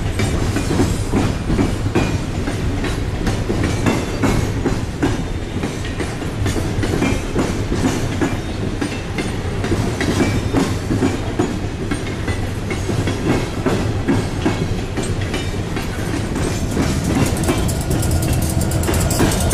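Freight train of steel coal gondola cars rolling past, wheels clicking and clattering over the rails in a steady stream over a low rumble.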